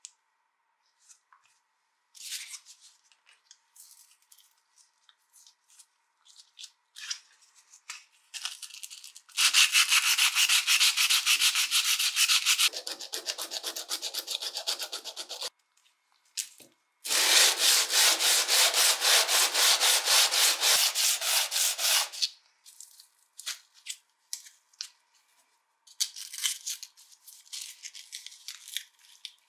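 Silicon carbide sandpaper rubbed by hand against a metal jaw piece of an old wrench in quick back-and-forth strokes. There are two runs of sanding, several seconds each, with small handling clicks and taps before, between and after them.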